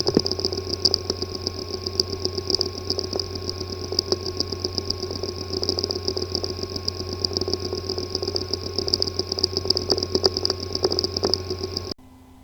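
Hard drive with a physically damaged disk assembly, running with a steady low hum, a rapidly pulsing high buzz and fast irregular ticking. It cuts off abruptly near the end.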